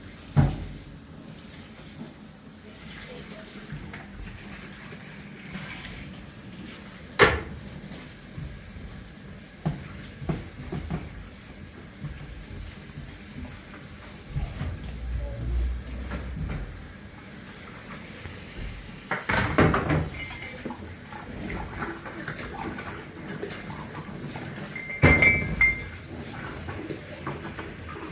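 Kitchenware clinking and knocking now and then, the loudest knocks in short clusters, over steady running water.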